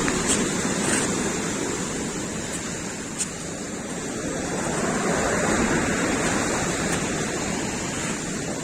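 Black Sea surf breaking on the shore, a steady loud wash that swells up about a second in and again around the middle.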